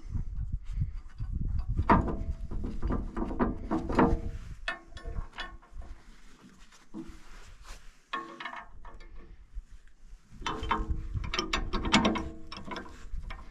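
Ratchet wrench tightening the nuts on new plowshare bolts. It clicks rapidly in several spells, with quieter pauses between them.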